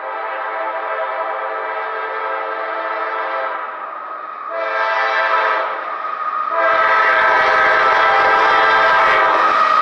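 Air horn of an approaching CSX freight train's GE diesel locomotive blowing for the grade crossing: a long blast that fades about three and a half seconds in, another blast a second later, then a louder blast from about seven seconds in as the low rumble of the train joins it.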